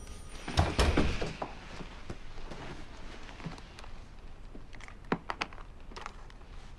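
About half a second in, a short cluster of dull thumps and rustling. About five seconds in come a few sharp clicks as the metal clasp of a leather handbag is worked open.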